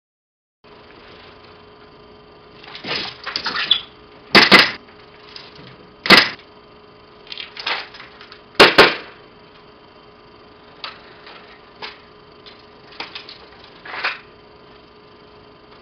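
Airsoft pistol firing: five sharp cracks, two in quick succession, then one, then two more, over about four and a half seconds. Softer clatter and rustling of the slung airsoft rifle and gear being handled come before and after the shots.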